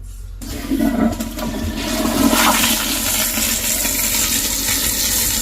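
Commercial toilet flushed by its new Zurn Metroflush flushometer valve, a test flush after installation. The flush starts suddenly about half a second in, with loud water rushing into the bowl that keeps going.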